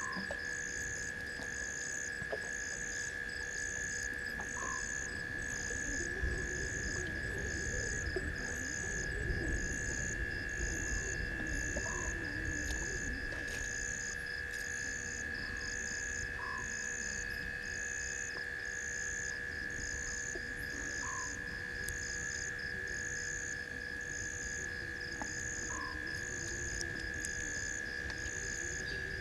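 Night chorus of insects and frogs: a steady high-pitched insect trill, a pulsing chirp about once a second, and a short rising call every few seconds.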